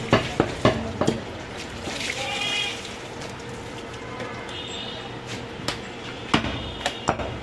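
Heavy meat cleaver chopping goat meat on a wooden chopping block: four sharp chops in the first second, then a few more knocks near the end as the meat is handled on the block.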